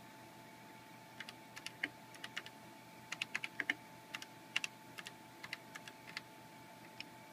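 Keys on a computer keyboard being typed in a quick, irregular run of clicks, starting about a second in, as a short command is entered.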